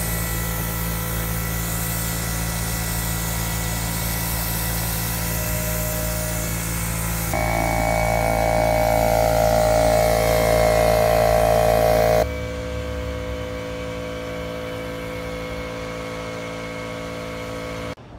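Small portable air compressor running steadily, powering a cup spray gun for parking-line paint. It grows louder with a slowly falling tone for a few seconds in the middle, then drops back abruptly about twelve seconds in.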